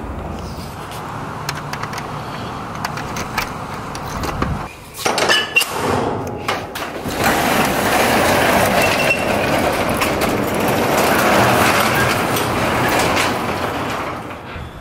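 Truck engine running, heard inside the cab, for about five seconds. After a break come several sharp clicks and knocks, then a long loud rattling clatter of a metal roll-up door being raised.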